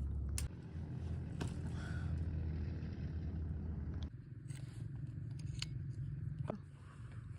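Wood being cut: a few separate sharp cracks and crunches over a steady low rumble, which drops off abruptly about four seconds in.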